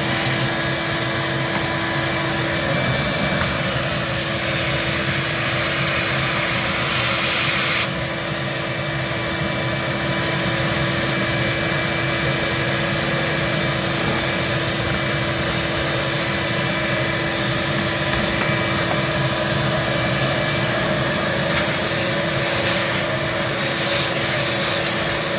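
Vacuum cleaner running steadily, its nozzle sucking dust and debris out of the bottom of a refrigerator compartment. The rush of air changes about eight seconds in as the nozzle is moved.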